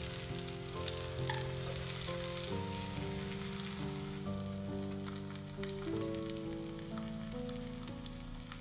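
Batter-coated napa cabbage leaves sizzling and crackling as they pan-fry in hot oil. Background music with held, changing notes plays alongside.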